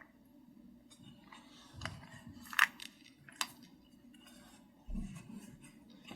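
Keystrokes on a custom mechanical keyboard, an SPM AL66B with Keychron Red linear switches and XVX keycaps, typed slowly and unevenly, with two sharper clacks about two and a half and three and a half seconds in.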